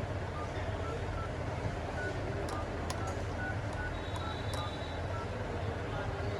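Steady low rumble of background noise, with a faint run of short beeps at changing pitches, a few sharp clicks near the middle and a brief high tone about four seconds in.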